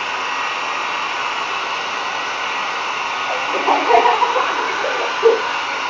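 Handheld hair dryer running steadily, a constant blowing hiss. A person's voice is briefly heard over it a little past halfway, with a short sound again near the end.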